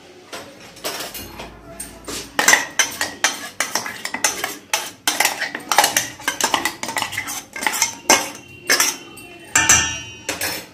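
Stainless-steel mixer-grinder jar clinking and knocking against a steel mixing bowl as ground masala paste is emptied out of it. The result is a rapid, irregular run of sharp metallic taps with some scraping.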